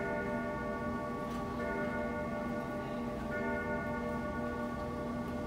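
Grandfather clock striking seven o'clock: three strikes about a second and a half apart, each left ringing into the next.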